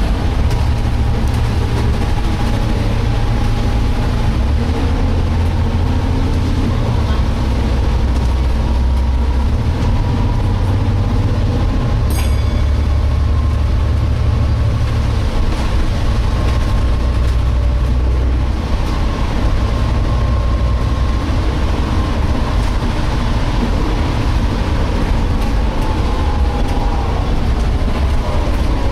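Volvo B7TL double-decker bus heard from inside while driving: a high whine from the rear-axle differential, shifting slightly in pitch, over the low drone of the engine and road. The whine is the strange differential noise the bus is known to make.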